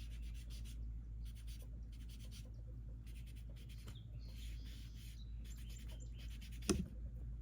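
Ink dauber rubbing and dabbing over embossed cardstock in short, quick scratchy strokes, with a longer rub about two-thirds through and a single light tap near the end.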